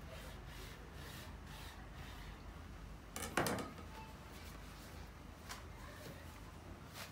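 Faint scraping and rustling of thin yufka pastry sheets being sliced with a knife on a tabletop and then handled, with one louder brief scrape about three seconds in.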